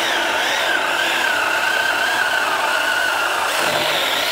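Seyvum 6-inch cordless electric mini chainsaw cutting through a ponderosa pine log, its motor whining steadily under load. The pitch wavers a little as the chain bites.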